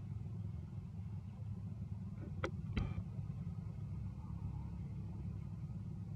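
Steady low rumble of background noise, with two brief sharp clicks close together about halfway through.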